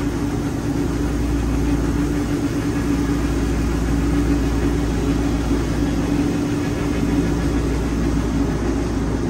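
Wood-Mizer LT40 band sawmill running steadily, its engine and band blade sawing through a hardwood log.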